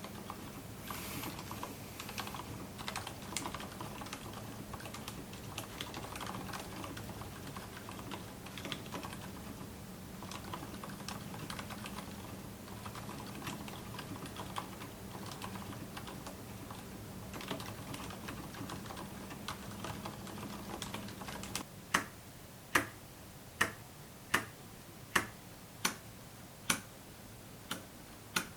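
Typing on a silent mechanical keyboard: soft, muffled keystrokes in quick succession over a steady background hum, with the volume boosted. About 22 s in, the hum stops and single key presses follow at an even pace, roughly one every 0.8 s, each a sharper but still dampened click.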